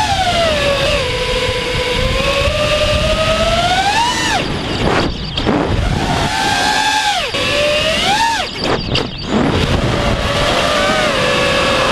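A Diatone Roma F5 V2 five-inch FPV quadcopter's brushless motors and propellers whining, the pitch rising and falling with the throttle. The whine climbs to peaks about 4 and 7 seconds in and drops out briefly near 5 and 9 seconds as the throttle is chopped for flips and split-S turns. Wind rushes over the onboard camera underneath.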